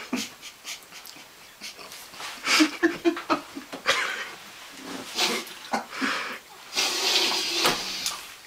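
A man's wordless breathy noises while he eats poutine: short grunts and snuffles, a few low moans about three seconds in, and a longer breathy rush near the end.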